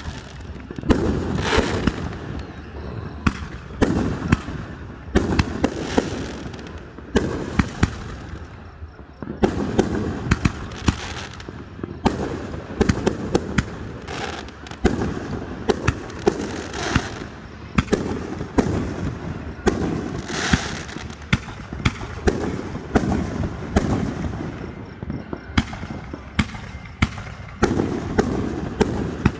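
Fireworks show: aerial shells bursting one after another, with many sharp bangs and crackles in quick succession and louder clusters of bursts every few seconds.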